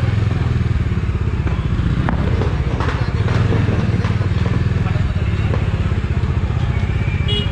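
Motorcycle engine running steadily as the bike is ridden slowly, heard from the rider's seat. A short high-pitched tone sounds near the end.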